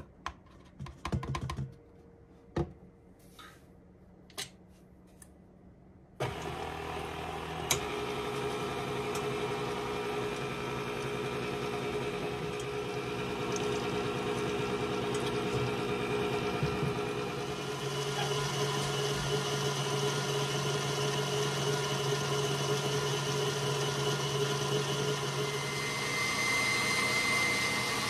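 A few sharp clicks and taps, then a KitchenAid Ultra Power stand mixer starts about six seconds in and runs steadily, its wire whisk beating cream in a stainless steel bowl. Its hum changes about two-thirds of the way through.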